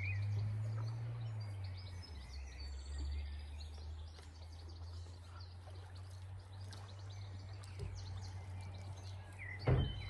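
Outdoor ambience: a steady low hum with birds chirping now and then, and a single sharp knock near the end.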